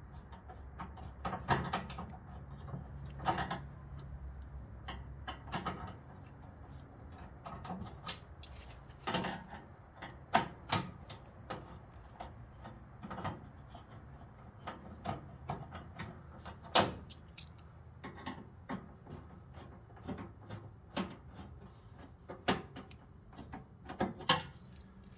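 Irregular clicks, clacks and knocks of hands working on a sheet-metal tool cabinet while its screws are backed out and its top chest is worked loose, with a few sharper metal knocks among them.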